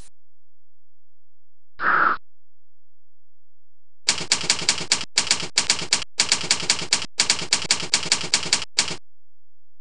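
Typewriter sound effect: rapid keystrokes, about five a second, in several short runs, accompanying text typing out letter by letter. A single short swish comes about two seconds in, before the typing starts.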